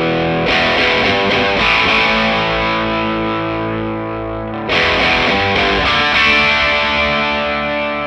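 Distorted electric guitar played through a BadCat Lynx 50 valve amplifier: chords struck and left to ring, with a fresh strum about half a second in and again near five seconds.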